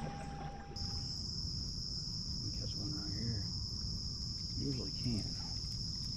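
Steady high-pitched chorus of insects, a continuous even drone that comes in suddenly about a second in and holds. A faint voice murmurs briefly twice in the middle of it.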